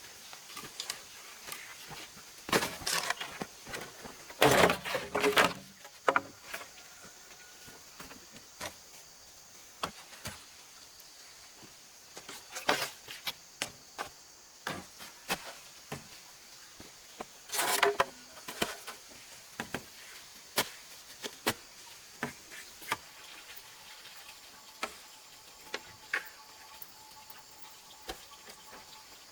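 Hand-work noises: scattered light knocks and clicks, with louder scraping rasps about 3 seconds, 5 seconds and 18 seconds in.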